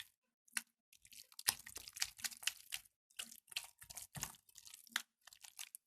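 Jelly slime being squeezed and kneaded by hand, making a run of irregular wet squelches and crackles.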